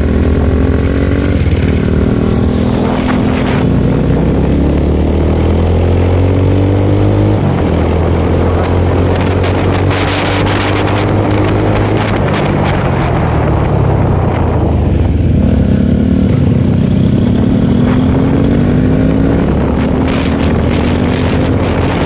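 Motorcycle engine under way, its pitch climbing and then dropping back several times as it accelerates and shifts gear, with steady wind rush.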